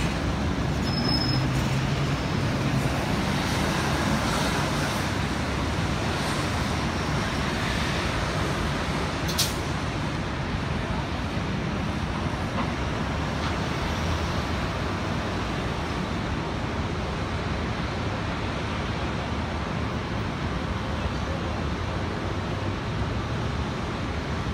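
Steady city traffic noise of vehicles, heavy ones among them, passing on the street, a little louder in the first few seconds. There is a brief high squeal about a second in and one sharp click about nine seconds in.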